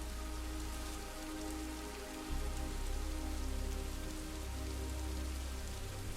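Steady rain falling, under soft ambient meditation music of held synth tones, with a deep bass note that swells in about two seconds in.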